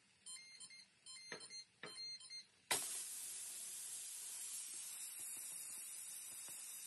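A Ninja Foodi multicooker beeps several times, then its pressure-release vent opens with a sudden loud hiss of escaping steam that carries on steadily: the cooker venting its pressure at the end of a delayed release after pressure cooking.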